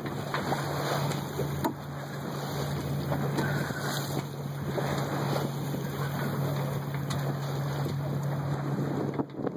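Wind buffeting the microphone and choppy water slapping and splashing against a small sailboat's hull as it moves along, with a steady low hum underneath.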